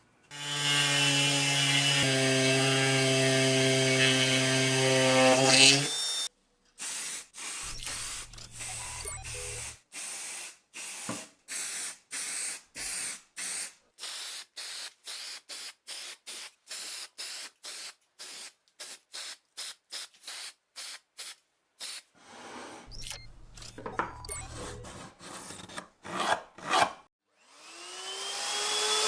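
Small electric power tool running steadily for about six seconds, then a long run of short, choppy bursts of tool work, and near the end a motor spinning up with rising pitch.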